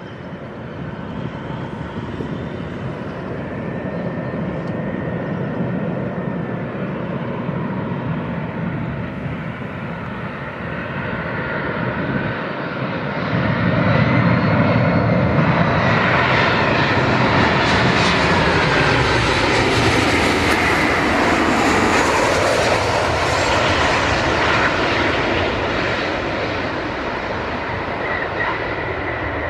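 Boeing 737-800 jet engines, CFM56 turbofans, on landing approach: a low rumble with a whine that grows louder as the airliner comes in and passes, the whine sliding down in pitch as it goes by, then easing slightly near the end.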